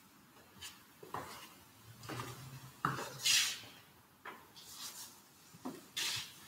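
A few scattered knocks and light clinks of small objects set down and handled on an altar, with cloth rustling, and one brief hiss about three seconds in.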